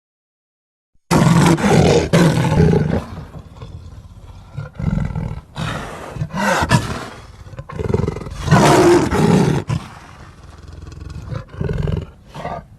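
Dinosaur roar sound effect for an Allosaurus: after a second of silence, a series of loud, rough roars with quieter growls between them, cutting off abruptly near the end.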